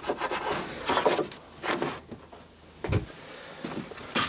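Power leads and a plug being handled against a wooden bench: several short bursts of rustling and knocking, with a dull thump about three seconds in.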